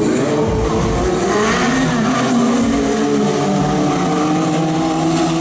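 Motorcycle engines revving as sport bikes ride by, the pitch rising and falling several times.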